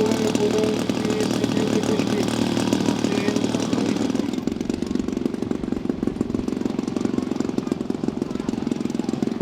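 A 180cc two-cylinder ZDZ petrol engine on a half-scale RC model airplane running at high power. About four seconds in, its steady pitch gives way to a lower, rougher sound.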